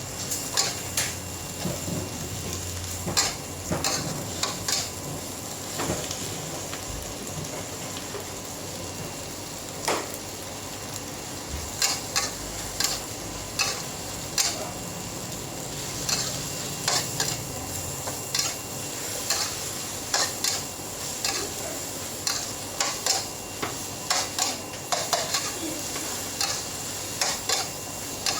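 Food sizzling on a hot pan while a metal spatula scrapes and clatters against it many times, in irregular strokes.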